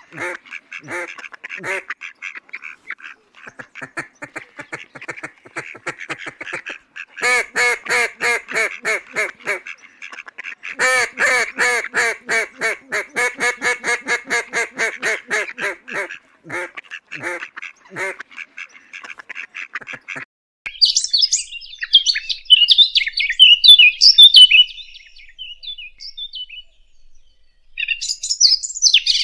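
Ducks quacking in long, rapid runs of calls. About two-thirds of the way through, the quacking gives way to small birds chirping and twittering.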